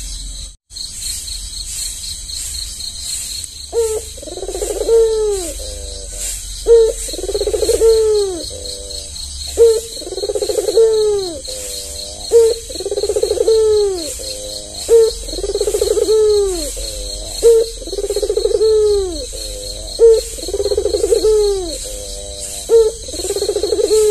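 Albino Barbary dove (puter) cooing: a short note followed by a long rolling coo, repeated about every two and a half to three seconds, starting about four seconds in. A steady, high pulsing trill runs underneath.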